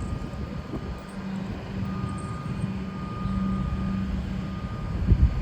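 Comeng electric train at the platform: a steady low rumble with a low hum from about a second in, joined by a thin high tone from about two seconds in, both stopping shortly before the end.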